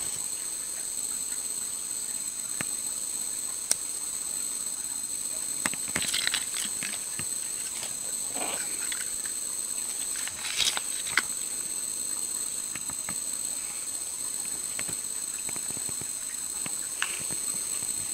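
Steady high-pitched insect chorus, drawn out without a break, with a few sharp clicks and brief scrapes as hands work the line on the gravel close by.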